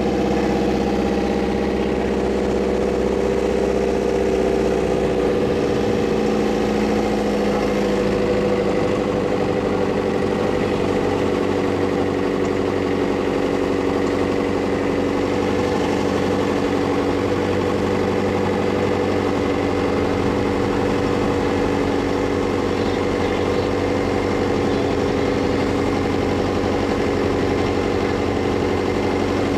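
A large truck's engine running at idle, a steady mid-pitched drone; its note drops between about five and nine seconds in, then holds steady.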